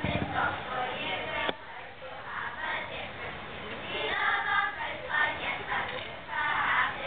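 A group of primary-school children singing a sea shanty together, in phrases with short breaks between them.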